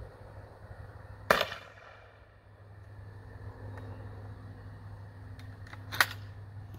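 A 37mm launcher fires a light black-powder load (25 grains), a single sharp shot with a short ringing tail. About six seconds in, after a couple of light clicks, comes a sharp metallic clack as the launcher's breech is opened to let out the smoke.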